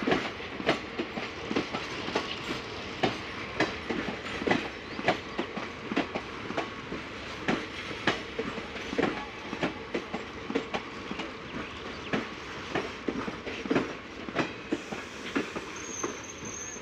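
Passenger train coaches rolling slowly past, their wheels knocking over the rail joints in an uneven clickety-clack of single and paired clacks over a steady rumble.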